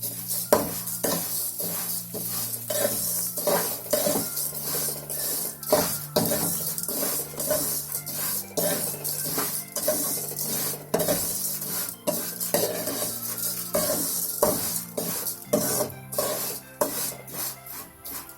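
Vermicelli roasting in hot oil in a pan, with a continuous sizzle while a spatula stirs and scrapes it against the pan about twice a second.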